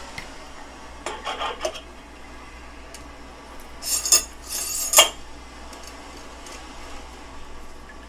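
Stainless steel still parts clinking and scraping together as the condenser pipe is fitted onto the column: a quick cluster of light metal knocks about a second in, then louder metallic clatter around four to five seconds in that ends in a sharp clank. A steady low hum runs underneath.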